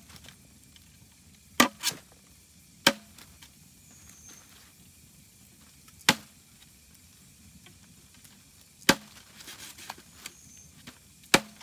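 Large knife chopping squirrel meat on a wooden block: about six sharp chops, a couple of seconds apart and irregular, two of them in quick succession early on.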